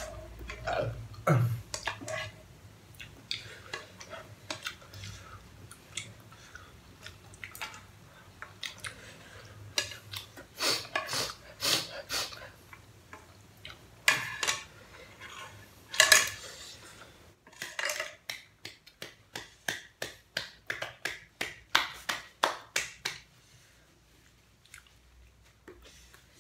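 Chopsticks and a metal fork clinking and scraping against a saucepan as pasta is eaten straight from the pan. In the second half comes a quick run of clicks, about three a second, as the last bits are scraped up from the nearly empty pan.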